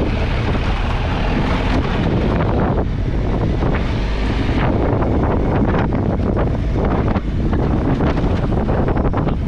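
Triumph Tiger 1200 XCA's three-cylinder engine running steadily while riding, under heavy wind buffeting on the microphone.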